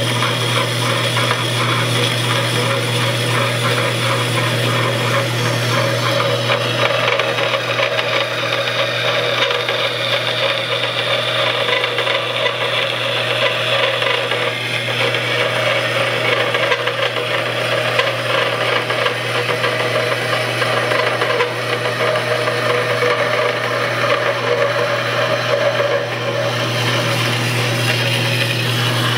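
Delta 14-inch bandsaw, slowed by a jackshaft and running a bimetal blade, cutting through steel channel. A steady motor hum sits under a continuous rasping of the blade in the metal.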